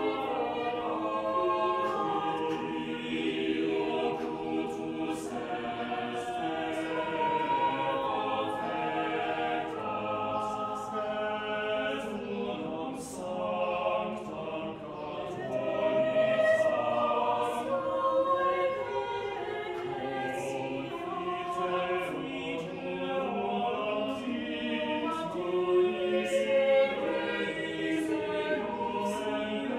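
Mixed chamber choir of women's and men's voices singing a cappella in several parts, with no instruments, under a conductor.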